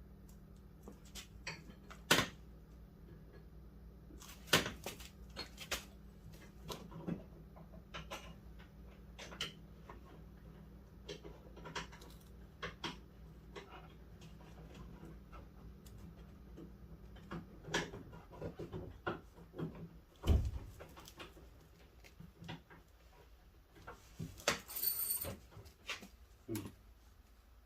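Scattered light clicks, taps and knocks of bolts, hand tools and metal parts being handled and fitted inside a Ford Mustang Fox-body door, with one heavier thump about two-thirds of the way through and a brief shrill squeak near the end.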